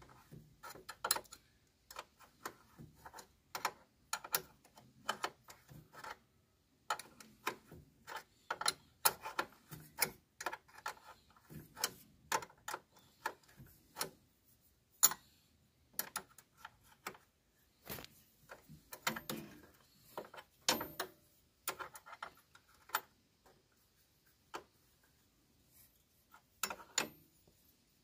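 Steel open-end spanners clicking and clinking against a brake-line union nut and hose fitting as the nut is tightened in short strokes: irregular sharp metallic ticks, a few a second, with brief pauses.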